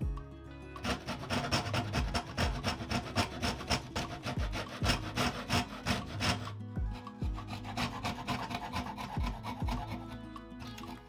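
Thin-bladed hand frame saw cutting a 1/4-inch poplar board, with fast back-and-forth rasping strokes starting about a second in and getting lighter after about six seconds. Background music plays underneath.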